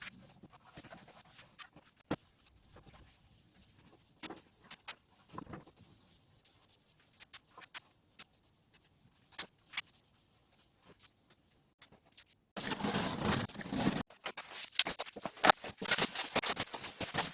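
Scattered light taps and clicks, then about twelve seconds in a louder stretch of dense scratching and rubbing with many clicks.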